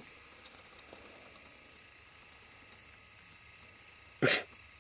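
Crickets and other night insects chirring steadily, a rapid even pulsing high above a continuous high-pitched trill. A short, sharp sound cuts in once, about four seconds in.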